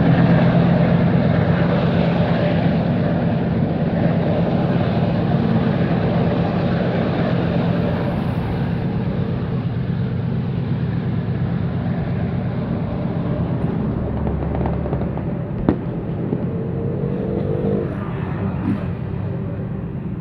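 Iron-ore freight train rolling past: a steady rumble of wagon wheels on the rails and the low hum of diesel locomotives, slowly fading, with a single sharp click about three-quarters of the way through.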